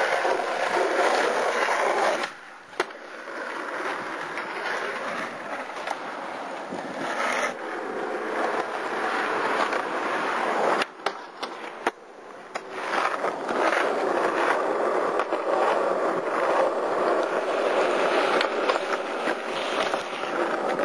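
Skateboard wheels rolling over asphalt and concrete, a steady gritty rumble that drops away and picks up again a few times, with a few sharp clacks of the board.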